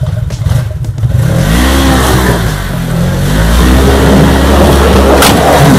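Side-by-side UTV engine revving hard as it climbs over snowy rocks. The pitch rises about a second and a half in, sags, then climbs again, with a sharp knock near the end.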